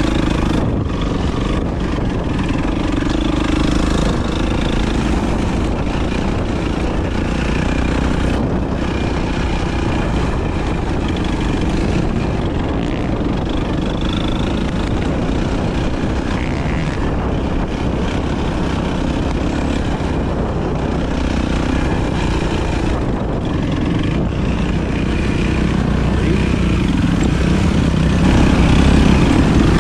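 Enduro motorcycle engine running steadily on the move, getting a little louder near the end.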